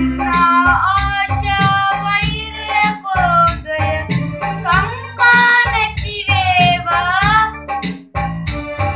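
Children singing a song together over instrumental accompaniment with a moving bass line.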